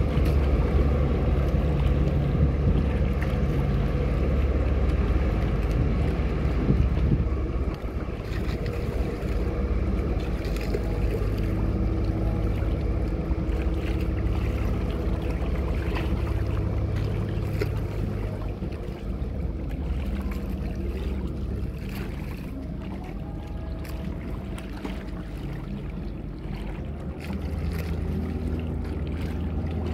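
Large passenger catamaran's engines running at low speed, a steady low drone that dips about eight seconds in and swells again near the end as the vessel turns, with wind and water noise.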